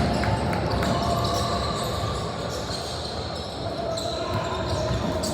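A basketball bouncing on a gym floor now and then, under a steady background of players' and spectators' voices.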